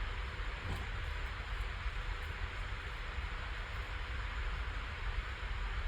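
Steady background hiss over a low hum, with a faint tick about a second in.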